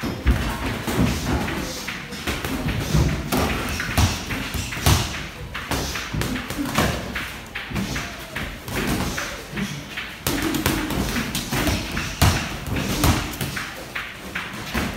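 Boxing gloves landing punches in sparring: a run of irregular thuds and slaps.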